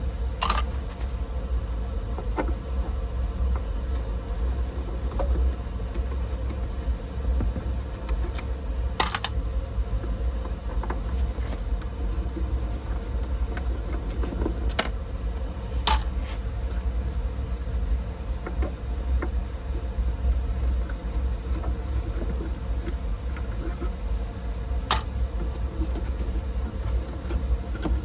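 A few sharp clicks and taps of a screwdriver and loose screws as the back panel of a tube radio is unscrewed, over a steady low hum.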